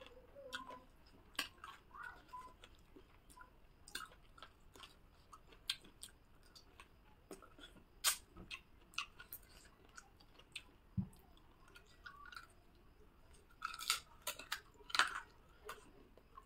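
A person chewing a mouthful of rice and chicken curry eaten by hand: soft, irregular wet smacks and mouth clicks, with a few louder ones near the end.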